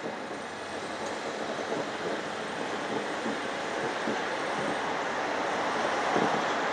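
Steady rushing noise of city traffic, slowly growing louder.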